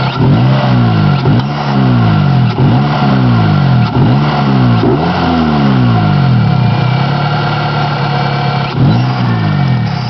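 Honda D16Z6 VTEC engine being revved in a series of quick throttle blips. Each blip jumps up and falls back, about every second and a half for the first half, then it settles for a few seconds before another blip near the end.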